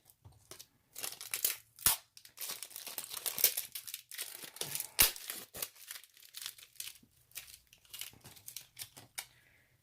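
Packaging being crinkled and torn open by hand, an irregular run of crackling with a few sharp snaps, about 2 and 5 seconds in.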